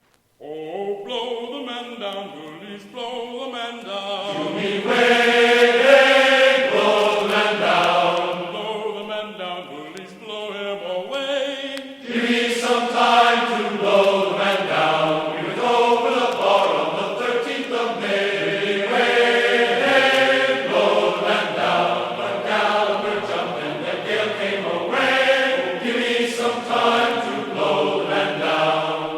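Music with chanted, choir-like voices holding long, sustained notes that shift in pitch.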